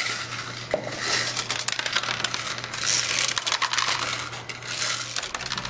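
M&M's candies rattling and clicking against one another, with a plastic candy wrapper crinkling: a dense, irregular run of small clicks. A steady low hum runs underneath and stops near the end.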